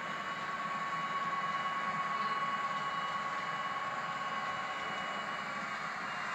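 H0-scale Roco model of a PKP ST44 diesel locomotive running slowly with its train: a steady whine from the model's drive over a light hiss of wheels on the track.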